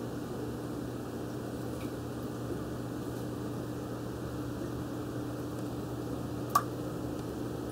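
Steady low hum of running aquarium equipment, with one sharp click a little over six seconds in.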